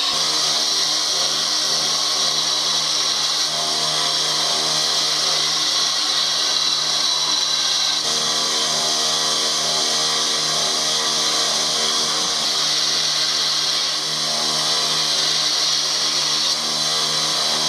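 Belt grinder running, its abrasive belt grinding the steel of a katana blade: a steady hiss over the motor's low hum.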